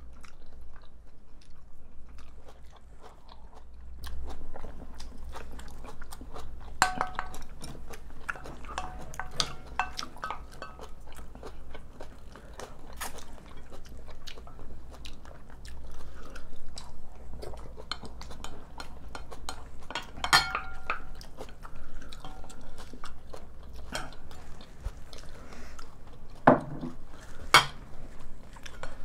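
Close-up eating sounds: chewing and crunching mouthfuls, with spoons and chopsticks scraping and clicking against ceramic bowls. Now and then a spoon strikes a bowl in a sharp ringing clink, loudest about 20 seconds in and twice near the end.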